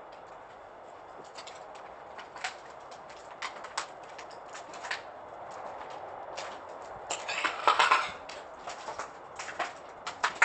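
Footsteps crunching and clinking over broken floor tiles, glass and debris, with irregular sharp crunches through the whole stretch and a denser, louder burst of crunching about seven to eight seconds in.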